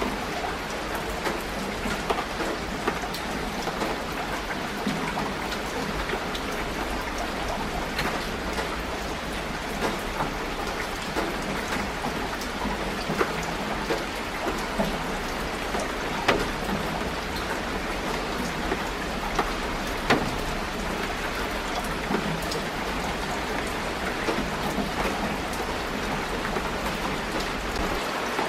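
Steady rain falling, with frequent sharp hits of individual drops close by.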